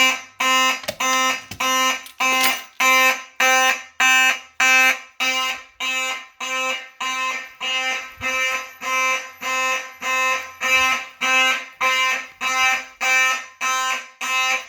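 Simplex 4903-9101 horn-strobe's 9838 horn sounding in march time, about one and a half buzzing pulses a second (90 beats per minute): a fire alarm set off by key-activating a Simplex 4251-21 pull station.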